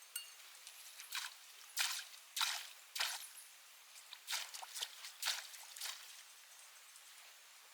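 Light water sounds: short, irregular splashes and drips, bunched in the first six seconds, then only a faint background.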